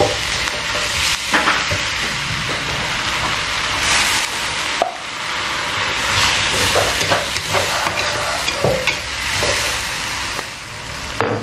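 Green vegetables sizzling in a wok as a metal ladle stirs and tosses them, with scattered clinks and scrapes of metal on the wok.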